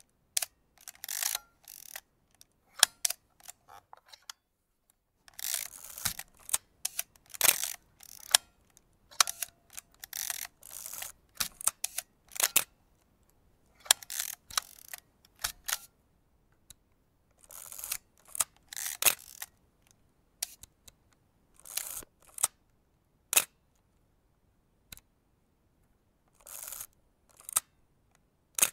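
Vintage film camera being worked by hand: a run of sharp mechanical shutter clicks alternating with short mechanical rasps, with brief silences between them.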